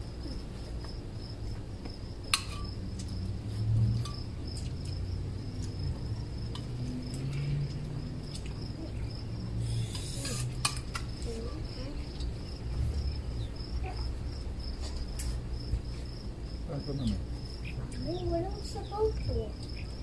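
Crickets chirping in a steady, high, pulsing trill, with cutlery and dishes clinking now and then; the sharpest clink comes about two seconds in.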